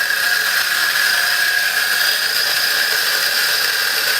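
Mazzer Mini doser espresso grinder running and grinding coffee, a steady, even whine from its motor and burrs, pretty quiet for a grinder.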